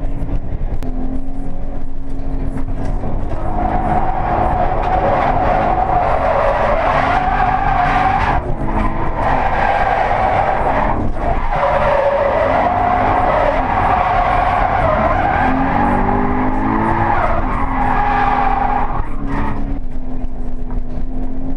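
Toyota 86's stock 2.0-litre flat-four engine revving up and down with tyres squealing through drifts, heard from inside the cabin. The squeal breaks off briefly about eight seconds in and again near the end.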